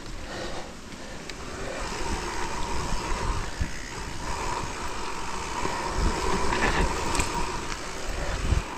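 Mountain bike rolling over a rough dirt trail: tyre noise and rattling knocks from the bike over bumps, growing louder after the first second, with a faint steady whine in the second half.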